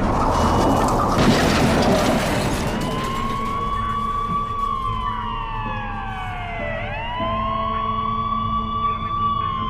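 Ambulance siren wailing, rising quickly, holding, then sliding slowly down in pitch, twice over. It is preceded in the first two seconds by a harsh, noisy rush.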